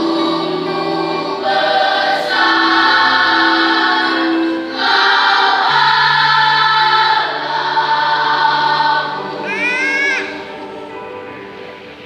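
Church choir singing a hymn in long held chords; the singing falls away about ten seconds in as the song ends.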